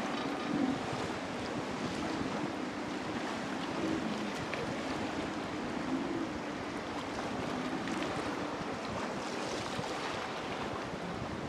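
Surf crashing and wind buffeting the microphone, under the faint hum of a distant outboard motor that rises and falls in pitch as the throttle changes.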